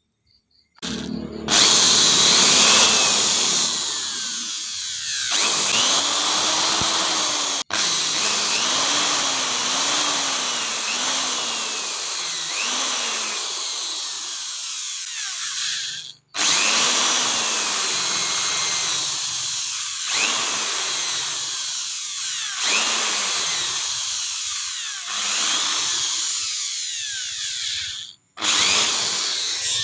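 Hand-held electric drill running with a twist bit, boring into a small piece of sonokeling (Indian rosewood) root. The motor's pitch repeatedly sags and rises as the bit bites into the wood. It stops sharply twice and starts again.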